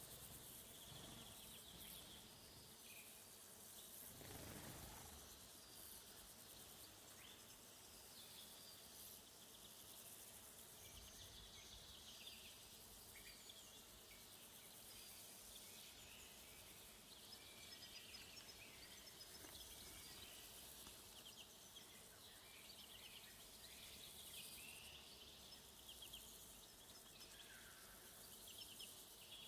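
Faint woodland ambience: crickets chirring steadily, with scattered distant bird calls. A brief gust of wind passes about four seconds in.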